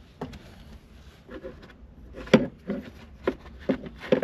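Hard parts being handled: faint rubbing, then about five sharp knocks and clacks roughly half a second apart in the second half.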